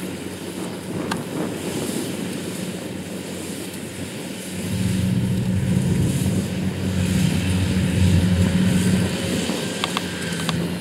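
Kubota DC70 Plus combine harvester running under load as it cuts and threshes lodged rice, with a steady diesel engine hum. The hum grows clearly louder about four and a half seconds in as the machine draws nearer.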